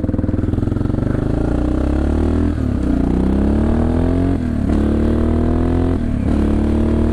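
CCM DS 644 big single-cylinder motorcycle engine pulling away and accelerating, rising in pitch through the gears with three short dips for upshifts, then holding a steady cruise.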